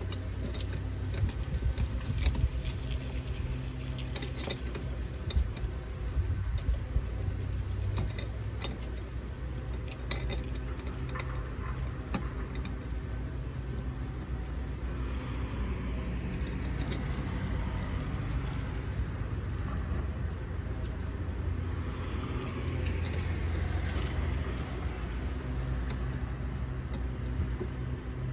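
Small clicks and light rattles of a flood light fixture and its hardware being handled and fitted overhead, over a steady low rumble. A broader rushing noise swells up in the middle and again later on.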